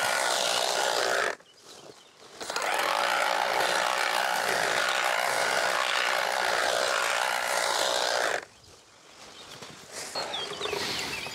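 Battery-powered tea harvesting machine running as it shears tea shoots with a steady motor whine. It makes a short run of about a second and a half, then after a brief pause a steady run of about six seconds.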